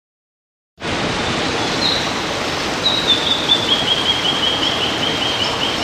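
Steady rush of a rainforest waterfall, starting about a second in, with a bird calling over it: a long run of short high notes that steps slowly down in pitch from about three seconds in.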